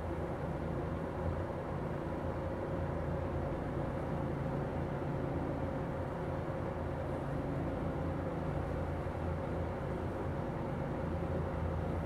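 Berns Air King 20-inch box fan running steadily: a low motor hum with a few steady tones under the rush of air from its spinning blades. The old fan runs smoothly without any added oil.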